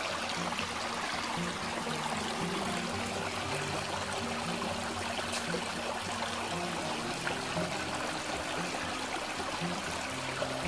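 Small river flowing steadily: an even rush and trickle of water.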